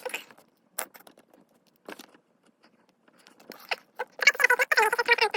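Sped-up handling of a blind-bag packet: scattered short clicks and crinkles, then about four seconds in a dense run of high, wavering pitched sound like sped-up chatter.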